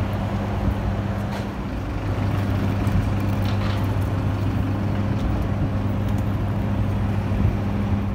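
Steady low hum over an even rush of running airport apron machinery beside a parked airliner.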